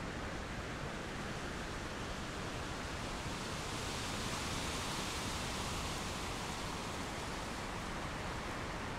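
Storm wind rushing through the treetops ahead of a thunderstorm. A steady rushing noise that swells for a couple of seconds about halfway through.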